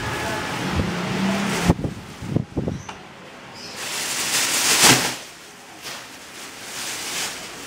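A few sharp knocks, then a rustle that swells and dies away: a burglar rummaging and handling plastic bags.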